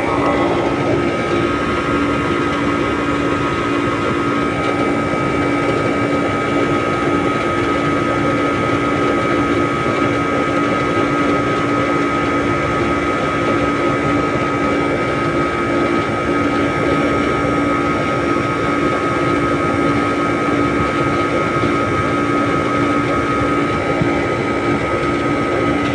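Air conditioning unit running steadily: a constant hum with a steady whine held on top.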